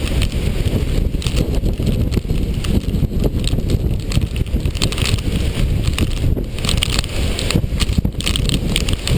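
Hurricane wind buffeting the microphone: a loud, uneven low rumble with surges of hiss as gusts hit.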